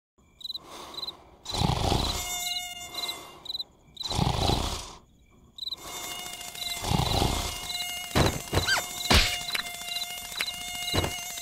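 Cartoon night ambience of crickets chirping in a regular rhythm, about twice a second, under a sleeping larva's slow snores. From about six seconds a mosquito's whine runs on, with a few sharp clicks near the end.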